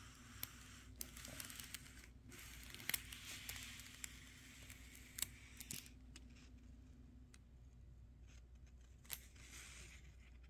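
Faint handling noise of a diamond painting canvas under fingers: soft rustling and a few short sharp clicks and crackles, over a low steady hum.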